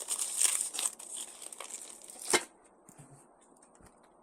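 Packaging crinkling and rustling as taped-together parts are handled, ending in one sharp click about two and a half seconds in, then near quiet.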